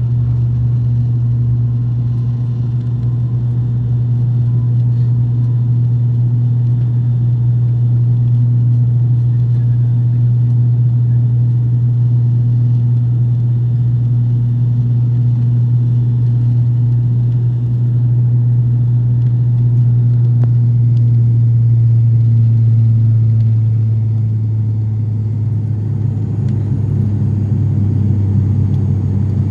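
ATR 72 twin-turboprop engine and propeller heard from inside the cabin, a loud, steady low drone during the climb after takeoff. The drone drops slightly in pitch about 24 seconds in.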